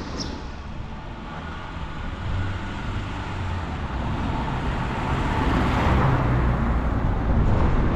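A car approaching and passing close by, its engine and tyre noise building to a peak about six seconds in.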